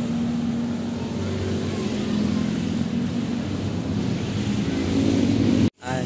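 Road traffic going by close: the engines and tyres of a passing car and motorcycles make a steady drone. It cuts out for an instant near the end.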